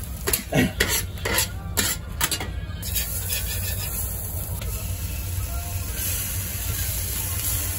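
Metal spatula scraping and clacking against a steel flat-top griddle while sausage strips sizzle, a run of quick strikes in the first three seconds. Then a steady sizzle as butter melts and bubbles on the hot griddle.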